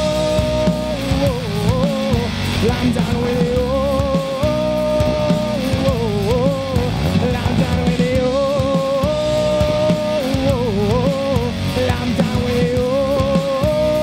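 Live rock band playing an instrumental passage: drums, bass and electric guitar under a loud held lead melody that bends down in pitch and back several times.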